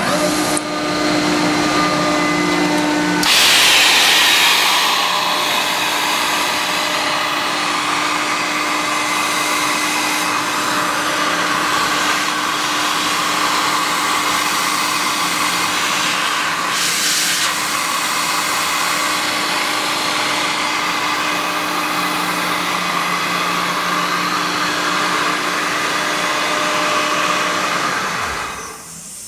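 Sullair 25 hp rotary screw air compressor, driven by a Lincoln AC electric motor, starting up and running steadily: a loud rush of air over a steady hum. A louder hiss comes a few seconds in, and the machine shuts down near the end.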